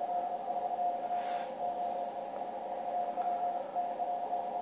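Morse code (CW) signal received on a Yaesu FTdx1200 HF transceiver: a single tone keyed on and off in dots and dashes over band hiss, the hiss narrowed by the radio's 500 Hz filter.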